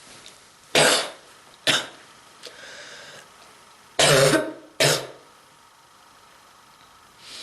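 A person coughing: four sharp coughs in two pairs about three seconds apart, each pair a longer cough followed by a shorter one.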